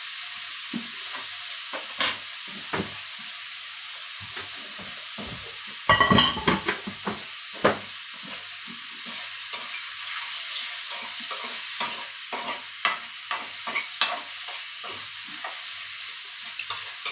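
Seafood sizzling as it fries in a hot pan, with a steady hiss. A utensil stirring it knocks and scrapes against the pan over and over, busiest about six seconds in and through the second half.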